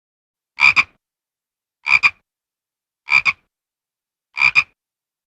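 An animal call, repeated four times at an even pace about every second and a half, each call a quick double note.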